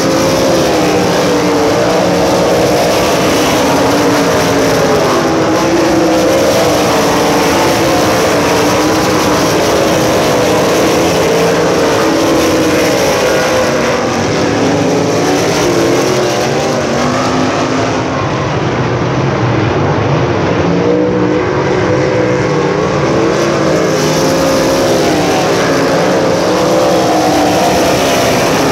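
A field of USAC Silver Crown race cars running laps, several engines at once, loud and continuous, their pitch wavering up and down as cars pass.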